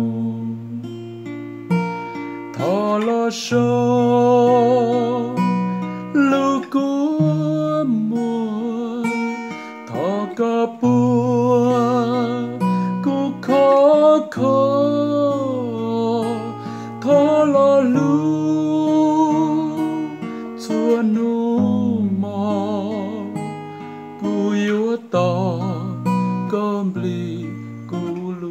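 A man singing with a wavering vibrato, accompanying himself on an acoustic guitar.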